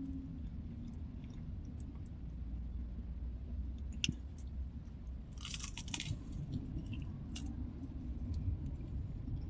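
A person chewing summer sausage and crackers close to the microphone, with small crisp crunches throughout and one louder crunch of cracker a little past halfway.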